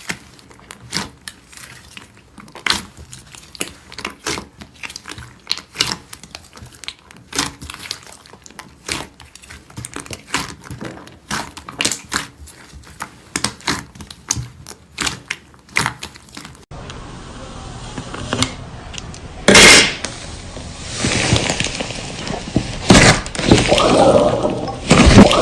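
Slime being pressed and worked by hand, giving a quick, irregular run of small crackling pops and clicks. About two-thirds of the way in it cuts to a louder clip of denser, wet squishing.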